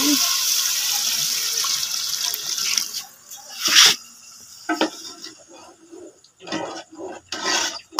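Water poured into a pot of hot frying chicken and masala, gushing and hissing steadily, stops about three seconds in. A sharp knock follows, then intermittent sounds of a ladle stirring in the pot.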